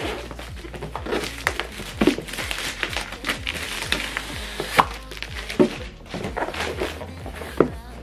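Cardboard packaging being handled: plastic wrap crinkling and a box sleeve sliding off an inner box, with sharp knocks and taps of cardboard on a table, over background music.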